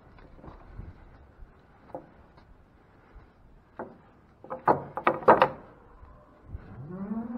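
A cluster of sharp knocks and rattles from the wooden boards and gate of a cattle pen, loudest about five seconds in. A rising call follows near the end.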